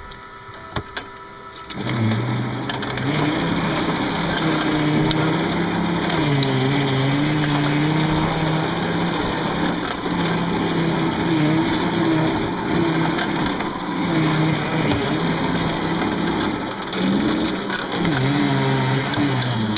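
Bulldozer engine running under load while digging dirt, its pitch rising and falling as the load changes. A few light clicks come first, then the engine comes up loud about two seconds in.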